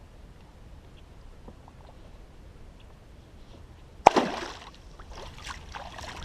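A sudden sharp splash on the water about four seconds in, dying away within half a second, followed by a few smaller sloshes.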